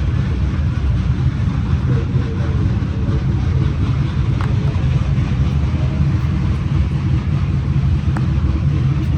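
Car engines running at a steady low rumble, with no revving or pass.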